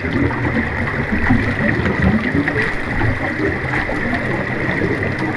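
Underwater bubbling and rushing water, a steady watery bubbling ambience.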